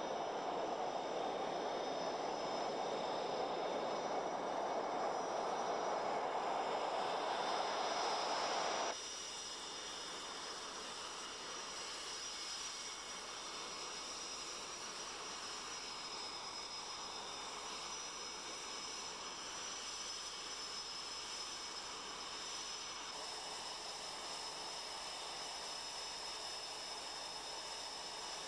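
Lockheed F-117 Nighthawk's twin F404 turbofan engines running on the ground as it taxis: a steady jet rush with a high turbine whine. About nine seconds in the sound cuts suddenly to a quieter, steady jet whine and hiss.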